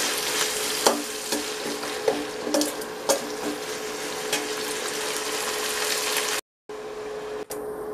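Dried anchovies sizzling in hot groundnut oil in a steel pan, with a perforated steel skimmer scraping and clinking against the pan a few times as it stirs them. The sound drops out for a moment near the end.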